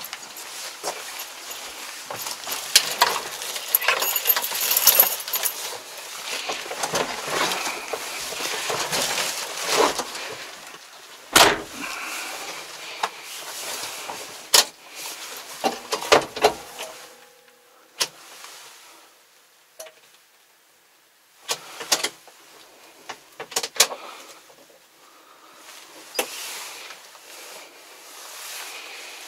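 Clicks, knocks and rustling of someone moving about in a Kubota tractor cab and handling its levers and controls, with the engine not running. A short steady tone sounds about halfway through.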